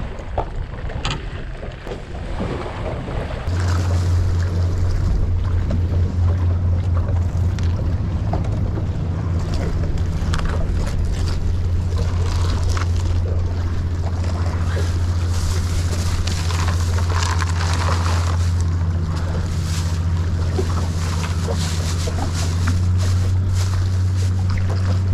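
Small skiff on choppy water with wind on the microphone, and scattered knocks and rustles as a fish is packed into an ice-filled cooler. A steady low machine hum starts abruptly a few seconds in and is the loudest sound.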